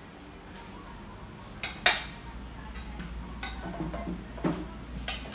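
Metal kitchen utensils clinking against a cooking pot while food is stirred, about five sharp clinks, the loudest about two seconds in.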